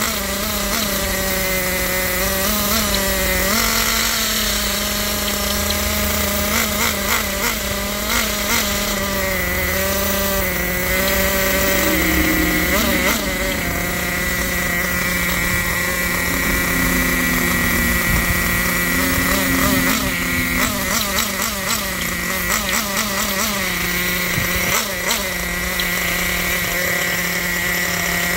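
Kyosho Inferno ST 1/8-scale RC truggy's two-stroke nitro glow engine running at idle, a steady buzz with small brief rises and dips in pitch. The engine is new and not yet broken in, still stiff.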